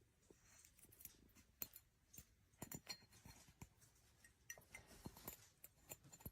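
Near silence, with faint, irregular small clicks and taps scattered through it.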